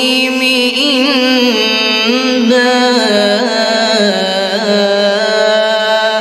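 A man reciting the Quran in the melodic tajweed style, drawing out one long sung phrase with wavering ornaments on the held notes.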